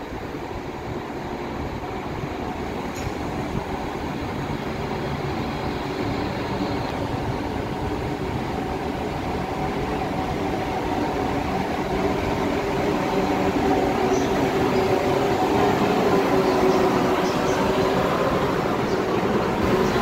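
South Western Railway Class 444 Desiro electric multiple unit moving slowly along the platform, a steady electric motor whine over wheel rumble. It grows steadily louder as the train draws close.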